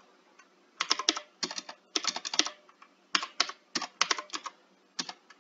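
Computer keyboard typing: short bursts of keystrokes with brief pauses between them.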